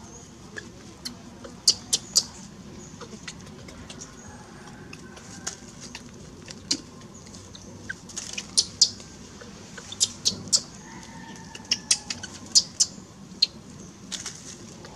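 Dry leaf litter crackling in scattered, irregular sharp clicks as small monkeys move over it.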